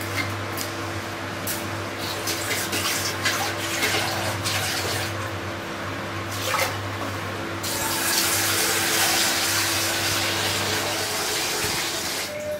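Water being poured from a plastic container into a steel pot of rice, splashing in short spells. About halfway through it turns into a louder, steady rush of running water. A steady low hum runs underneath.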